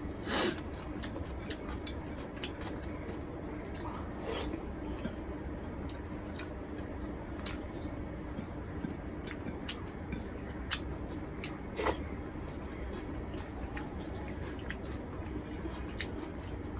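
Eating rice with fish curry by hand: wet squishing as fingers mix and knead the rice into the curry on a plate, along with chewing. A few short sharp clicks stand out, the loudest about half a second in, over a steady low hum.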